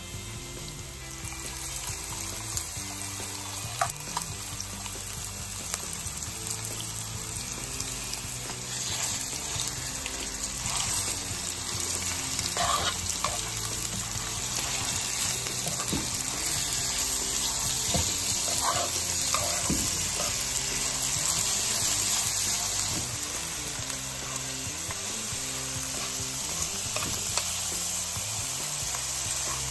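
Minced beef, onion and garlic sizzling in hot oil in a frying pan, with a few clicks and scrapes of a metal spoon stirring it.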